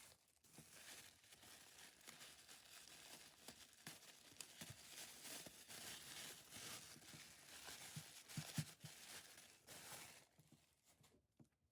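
Packaging being opened by hand: steady tearing and crinkling with small knocks, which stops about ten seconds in and leaves a few faint clicks.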